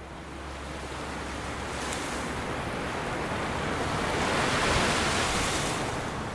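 Ocean surf: waves breaking and washing up a beach in a steady rushing hiss that swells to its loudest about five seconds in, then fades out.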